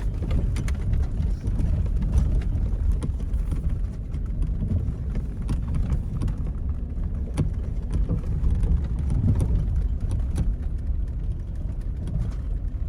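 Vehicle driving on a rough road: a steady low rumble with scattered knocks and rattles.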